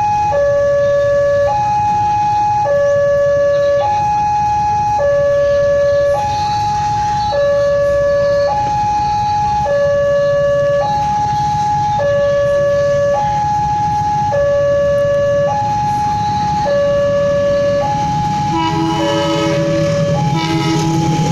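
Level-crossing warning alarm sounding a two-tone signal that alternates between a lower and a higher pitch, each held about a second, warning of an approaching train. Near the end the approaching locomotive sounds two horn blasts, with a low rumble growing under them.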